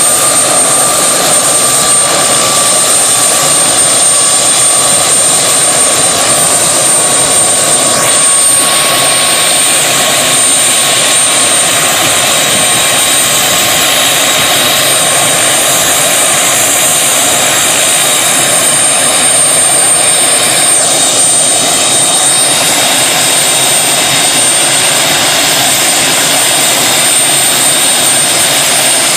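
Helicopter engine and rotor noise heard from inside the cabin: loud and steady, with a thin high whine over it.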